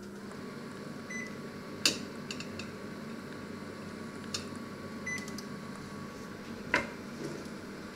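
Panasonic inverter microwave oven being set and run: a steady hum as it runs, two short high beeps as its controls are used, and a few sharp clicks.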